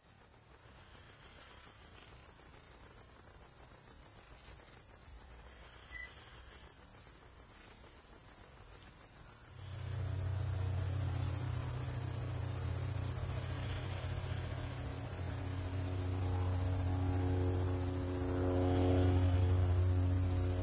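Crickets chirring in a steady, very high, fast-pulsing trill. About ten seconds in, a low, held musical drone with sustained notes comes in beneath it.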